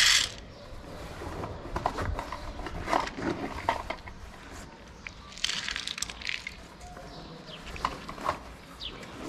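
Dry cat food poured from a plastic cup rattles into a shallow dish in a loud burst at the very start. After that a cat eats the kibble, with irregular crunches and clicks of chewing.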